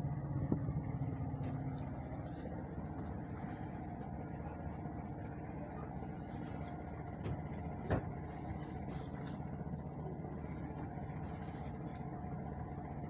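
Boat motor running at a steady, even drone, with one sharp knock about eight seconds in.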